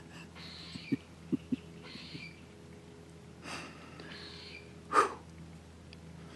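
A man breathing and sniffing through his nose, with a few soft clicks in the first two seconds and one short, louder snort or sniff about five seconds in.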